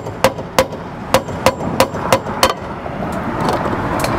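Hammer driving a nail through a concrete S-shaped rake tile into the wooden rake board: quick, even strikes, about three a second, that stop about two and a half seconds in.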